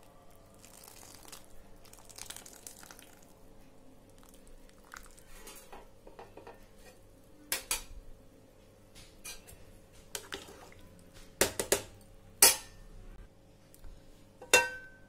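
Chicken broth dripping and bubbling softly in a pot as the spice bag is lifted out, then a handful of sharp clinks and knocks of metal cookware, the loudest two about a second apart near the end.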